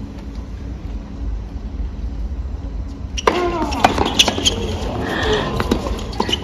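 Tennis rally heard from the stands: a few sharp racquet-on-ball hits in the second half, over nearby spectators talking and a low rumble.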